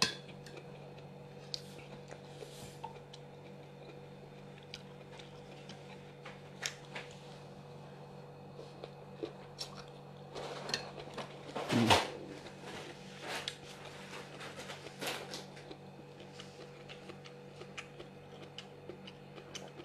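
Steady low hum, with scattered small clicks and taps and one louder knock about twelve seconds in.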